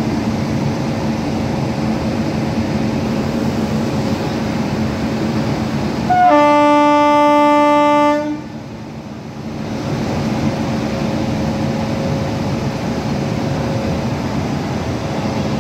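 WAP-5 electric locomotive standing with a steady hum, sounding its horn once for about two seconds, a little before the middle, as the departure signal.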